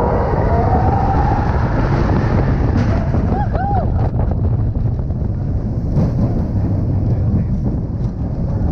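Roller coaster ridden and recorded on board, most likely Expedition Everest: a steady low rumble from the running train with wind buffeting the microphone. A rider gives a short vocal whoop about three and a half seconds in.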